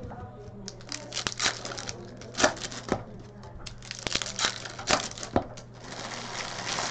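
Hockey card packs being crinkled and torn open by hand, with sharp clicks and snaps from handling the wrappers and cards, turning to a denser crinkling rustle from about six seconds in.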